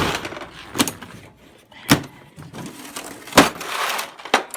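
Toolkit being opened and rummaged through for a ratchet: a handful of separate sharp knocks and clatters of tools and case.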